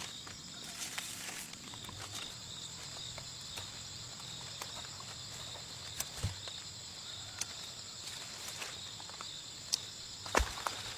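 Steady high-pitched insect chorus, with scattered footsteps and light knocks. A louder thump comes about six seconds in and another near the end.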